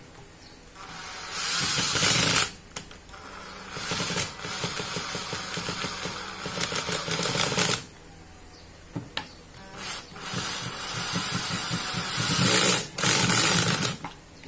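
National 12 V cordless drill/driver running with a long bit in its chuck, its motor and gears whirring in about four bursts of one to four seconds each, with quieter gaps between them.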